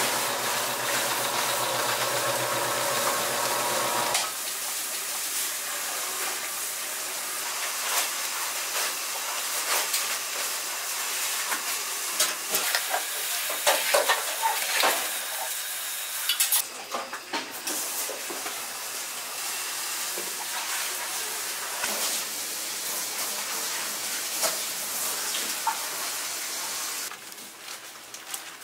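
An electric noodle-cutting machine runs with a steady hum for about the first four seconds. Then a large pot of broth boils with a steady hiss while fresh noodles are stirred with a metal utensil, which knocks and scrapes against the metal pot, most often around the middle.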